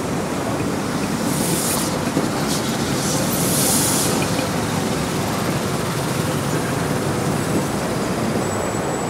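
North Borneo Railway train carriages rolling over the rails: a steady rumble of wheels on track, with two short bursts of hiss, about a second and a half and three and a half seconds in.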